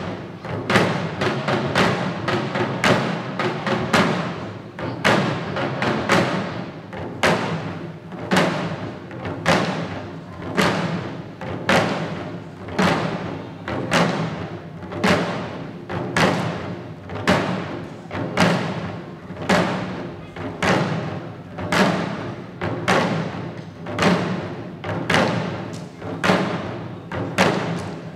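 Shishi odori deer-dance drums: the dancers' chest-slung taiko struck in a steady, even beat, about one to two strokes a second.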